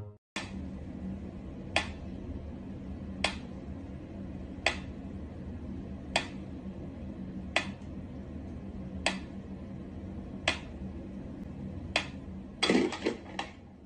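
Mechanical pendulum metronome ticking slowly and evenly, one sharp tick about every second and a half. Near the end a quick cluster of knocks and rattling comes in as a cat paws at it.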